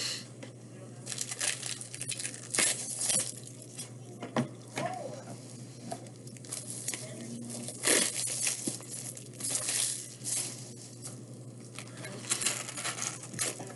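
Packaging of a Topps Series 1 baseball card hobby box being torn open and crinkled by hand, in a series of short rustling bursts, over a steady low hum.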